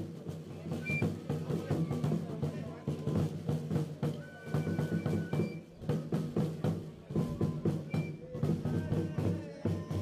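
Traditional Tzotzil carnival music: a drum beating along with flute and trumpet playing.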